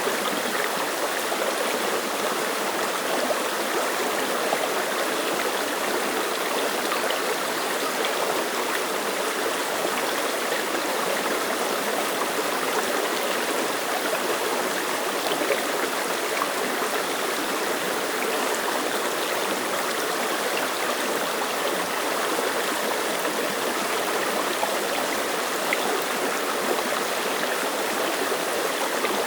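Clear mountain stream running over rocks: a steady, even babble of flowing water.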